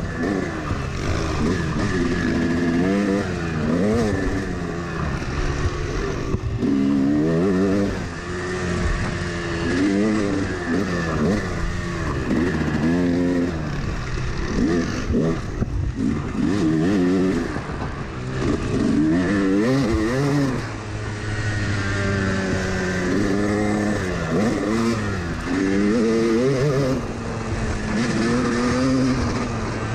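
A Yamaha YZ dirt bike's engine, heard from onboard while riding hard on a sand trail. The revs climb and drop again and again as the rider works the throttle and gears, over steady wind and tyre noise.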